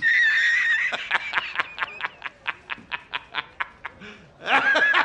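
A person laughing: a high, wavering squeal, then a quick rhythmic run of short laughs, about five a second, fading, and a louder burst of laughter near the end.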